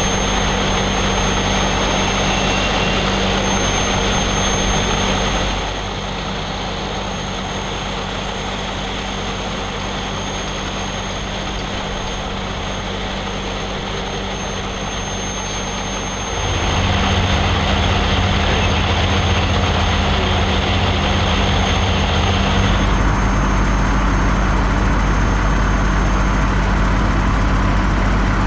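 Steady low drone of engines running, with a thin high whine throughout. It turns quieter about six seconds in and louder again from about sixteen seconds in.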